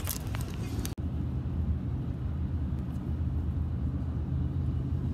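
Steady low road and engine rumble inside a moving car's cabin. A brief brighter noise in the first second cuts off abruptly about a second in.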